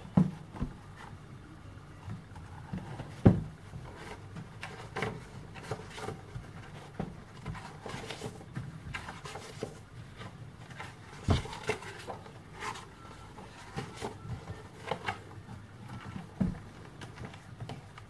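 Pages of a paperback activity book being opened, turned and flipped by hand: paper rustling and flapping with irregular taps and soft thumps of the book and hands on a table, the loudest thump about three seconds in. A low steady hum underneath.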